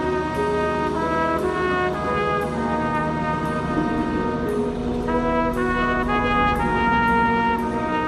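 Winds ensemble playing: brass chords held for a second or so each and shifting from note to note, over a light percussion tick about twice a second.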